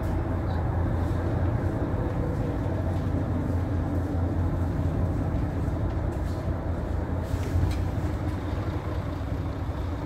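Diesel engine idling, a steady low hum with no change in speed.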